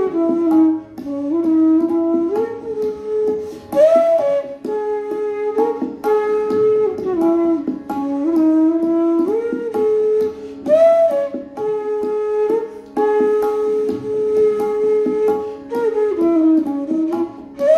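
Bamboo bansuri flute playing a slow melody in Raag Kaushik Dhwani (Bhinna Shadaj): long held notes joined by slides up and down, with short breaks for breath. A steady low drone sounds beneath.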